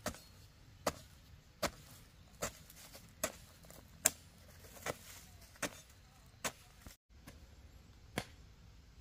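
A series of sharp, evenly paced strikes, about one every 0.8 seconds, like a tool chopping or hacking by hand, with a short gap just after seven seconds.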